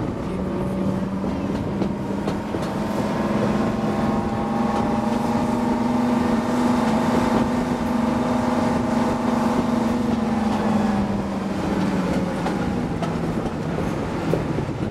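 Class 55 Deltic diesel locomotive's Napier Deltic two-stroke engines running under power, heard from the train it is hauling: a steady multi-tone engine note over running train noise. The note rises slightly about two seconds in and eases down around ten seconds in.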